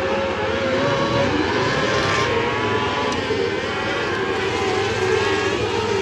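A pack of small open-wheel dirt-track race cars running flat out around the oval. Several engines overlap, and their pitches rise and fall as the cars come off and into the turns.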